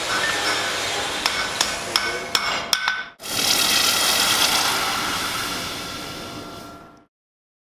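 A blacksmith's hammer striking hot steel on an anvil in a run of irregular blows, each with a short metallic ring. About three seconds in, this gives way abruptly to a steady hiss that fades away and cuts off about seven seconds in.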